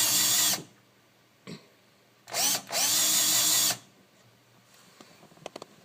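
Dewalt 12-volt cordless drill driving a hex-head screw into a desk, with its clutch turned up to the highest torque setting: a short burst at the start, then a longer run of about a second and a half beginning about two seconds in, each starting with a rising whine. A few small clicks near the end.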